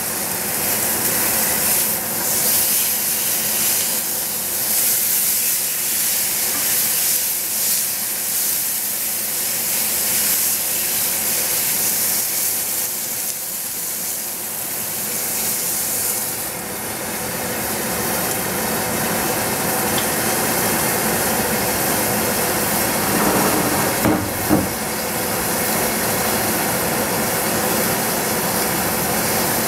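Chicken frying in a pan on a gas stove: a steady sizzling hiss. About 24 seconds in, two short knocks as a lid goes onto the frying pan.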